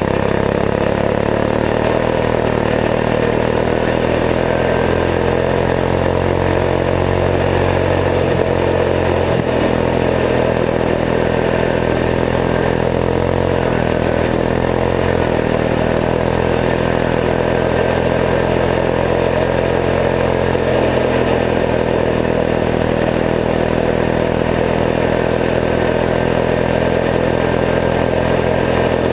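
Turbocharged 14 hp single-cylinder Kohler engine of a Gilson garden tractor running steadily under way, its engine speed shifting slightly a few times.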